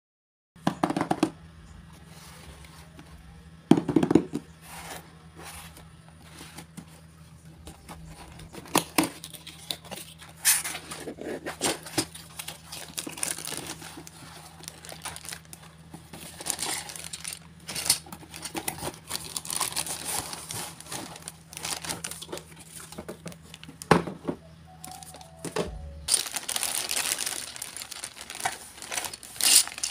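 A cardboard game box is handled and opened, with scattered knocks and rustles. Near the end the plastic packaging bags crinkle as the wrapped toy parts are lifted out. A faint low hum sits underneath and stops shortly before the crinkling begins.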